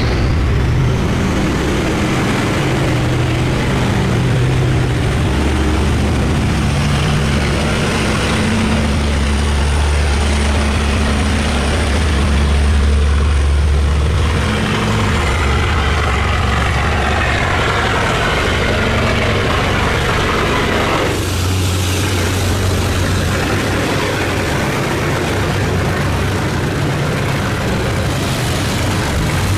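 Boat engines running: a steady low engine drone, with several engine notes at different pitches coming and going. The deepest hum is loudest about a third of the way through, and the sound changes abruptly about two-thirds of the way through.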